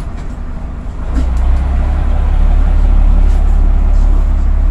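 Bristol VR double-deck bus's diesel engine heard from inside the lower deck, a low rumble that grows louder about a second in and holds there as the engine works harder.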